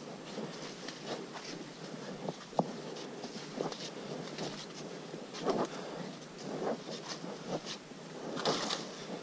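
Footsteps of hikers walking on a muddy forest trail: an irregular run of soft steps over a steady background hiss.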